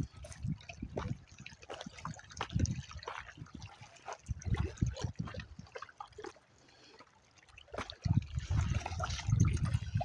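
Dogs splashing and wading in shallow lake water at a rocky shore, mixed with irregular crunching steps on loose stones. The splashing grows louder in the last couple of seconds.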